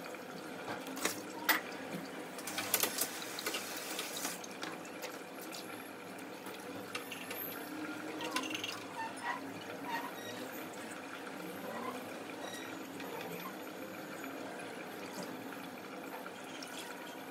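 Kitchen tap running water into a sink, with a cluster of sharp clinks and knocks of utensils in the first few seconds and lighter ones after.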